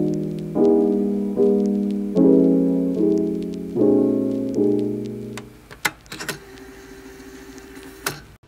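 Background piano music: soft chords struck about every eight-tenths of a second, fading away about two-thirds of the way through.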